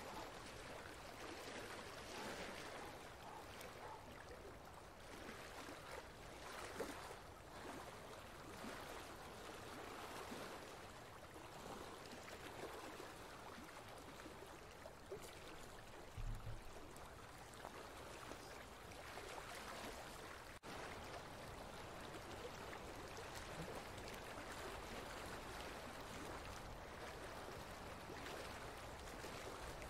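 Quiet, steady sound of running water, with a short low thump about halfway through and a brief dropout a few seconds later.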